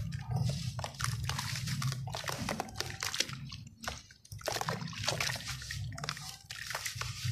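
A soaked sand-and-cement block crumbling in a tub of muddy water as hands break off and squeeze wet gritty handfuls. Dense crackling and sloshing, with a brief lull about four seconds in.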